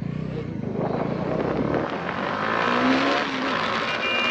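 Motorcycle engine and wind rush while riding, the engine note rising in pitch about two and a half seconds in. A short steady high tone sounds near the end.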